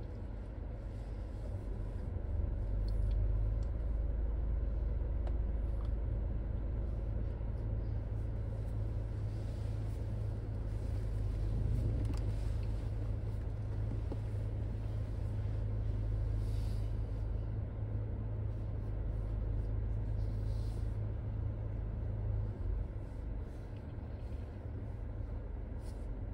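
Proton X70's engine idling, heard from inside the cabin as a steady low rumble that grows louder about two seconds in and eases back a few seconds before the end. It is kept running to power the head unit through its software update.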